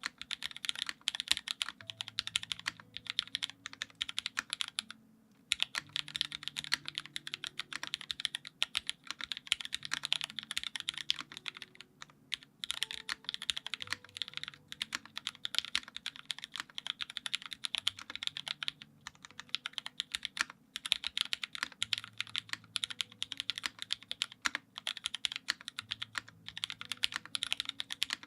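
Fast, continuous typing on a Dalco 959 mini mechanical keyboard with linear Hyperglide Cherry MX Black switches lubed with GHV4, in an aluminum plate, with GMK keycaps: dense clacking with a couple of brief pauses. Faint low tones sound underneath.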